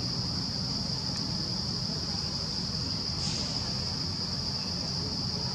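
Insects droning in one steady, high-pitched unbroken tone, over a low steady rumble, with a brief louder rasp about three seconds in.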